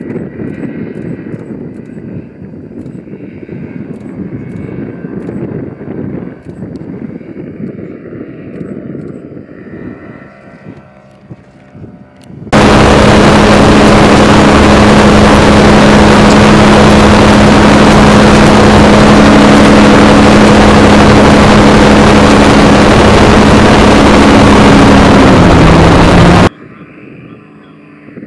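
Aircraft engine and propeller heard from a camera mounted on the unmanned ultralight: from about halfway through, a very loud, overdriven steady engine drone with rushing air for about fourteen seconds. Its pitch dips slightly just before it cuts off suddenly. Before that there is a softer low rumble of wind with a faint distant engine.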